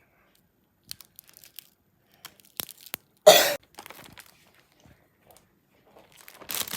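Candy wrapper being unwrapped: scattered small crinkles and crackles, one loud short noisy burst about three seconds in, and rustling picking up again near the end.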